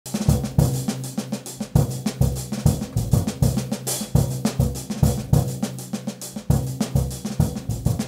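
Background music led by a drum kit, with a steady beat of snare, bass drum and hi-hat over a bass line.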